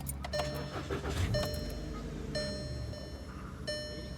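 Car's electronic warning chime sounding four times, about once a second, over a steady low hum.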